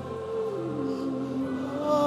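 Slow live gospel worship music: sustained chords holding between sung lines, with one held note sliding down in pitch.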